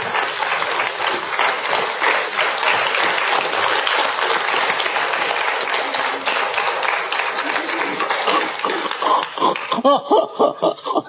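Studio audience applauding steadily. The applause dies away about nine seconds in, and a voice is heard in short bursts near the end.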